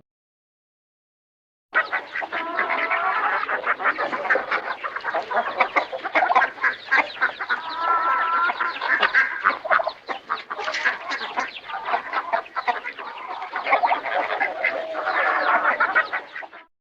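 Barnyard ambience of chickens clucking, ducks quacking and geese honking, with other birds calling, in a dense overlapping chorus. It starts about two seconds in and cuts off just before the end.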